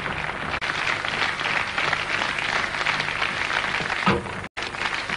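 Concert audience applauding in a hall, a dense steady clatter of clapping. The sound cuts out for a split second near the end.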